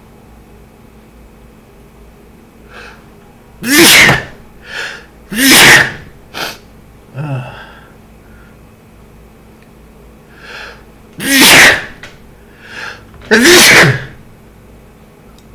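A man sneezing hard four times, in two pairs several seconds apart, with shorter, quieter sounds between them. The sneezes are an allergic hay fever sneezing fit.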